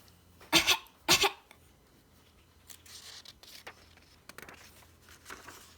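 A woman gives two short, acted coughs, about half a second apart, playing the flea's cough from the story. After them comes faint paper rustling.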